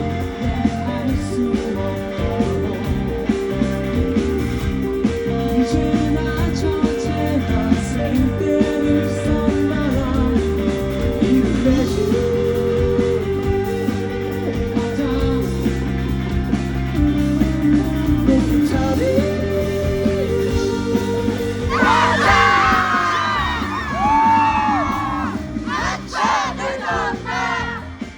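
Live rock band playing: sustained electric guitar chords over bass and drums with a lead vocal. About three-quarters of the way through, a high, wailing line with bending pitch comes to the front and is the loudest part.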